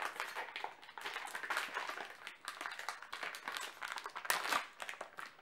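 Small plastic wrapper of a blind-bag packet being crinkled and torn open by hand: a dense, continuous crackling rustle, louder about four seconds in.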